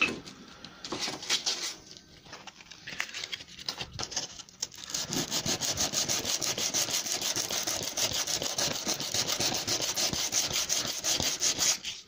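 Hand sanding beech with a sanding block, rubbing back and forth over the edge of a freshly cut finger-pull recess to take out the burn marks. The strokes are uneven at first, then quick and steady from about five seconds in.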